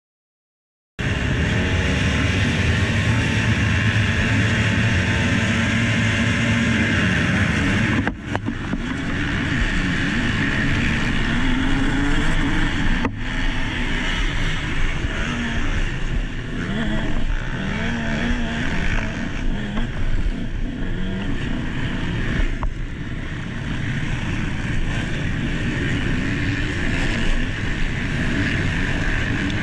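Motocross motorcycle engine at racing speed, revs rising and falling with throttle and gear changes, with a short dip in level about eight seconds in.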